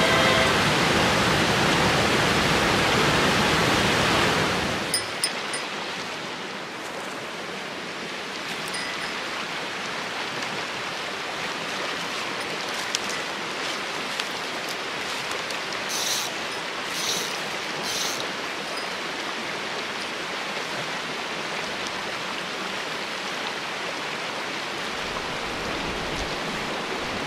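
Mountain stream running over rocks, a steady rush of water that is louder for the first four or five seconds and then settles lower. Three short high-pitched sounds come about two-thirds of the way through.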